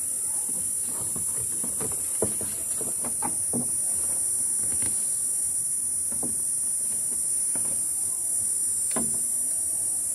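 Hands rustling and handling a small cloth pouch and its tie while fastening it in place, with scattered soft clicks and taps, over a steady high hiss.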